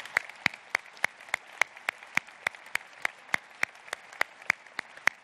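Audience applauding, with one clapper near the microphone standing out in a steady beat of about three to four claps a second.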